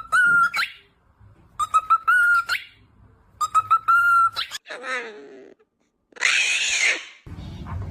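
A parrot whistles the same short phrase three times, each rising at the end, then gives a lower call and, near the end, a loud harsh call.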